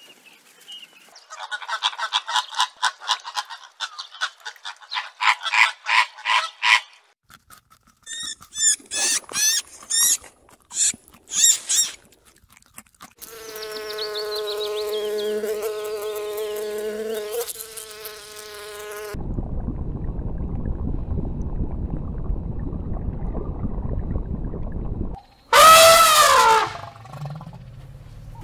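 A series of separate animal sound effects: rapid chirping pulses, then sharp high chirps, then a flying insect's steady buzz, then a stretch of low, even noise. Near the end comes a loud elephant trumpet that dips and rises in pitch.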